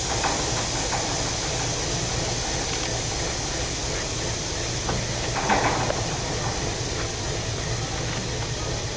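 ALCO T6 diesel switcher locomotive idling: a steady low rumble under a constant hiss, with a brief knock about five and a half seconds in.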